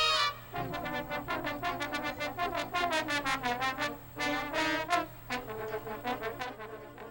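High school marching band brass section playing a fast passage of short, separated notes.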